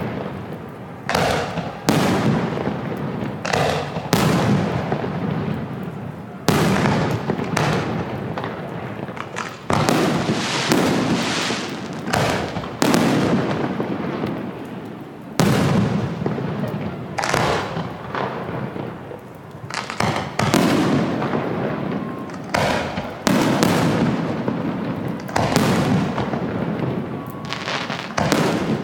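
Aerial fireworks shells bursting one after another: a sharp boom every second or two, each trailing off in a rumbling echo.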